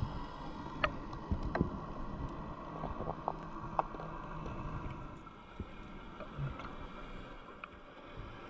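Underwater ambience picked up by a diving camera: a steady low rumble and hiss with scattered sharp clicks, a few of them in the first four seconds.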